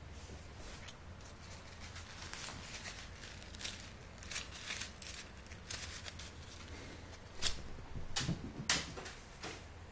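Crumpled paper ball rustling and crinkling as it is handled, in short bursts, with a few sharper knocks and taps near the end.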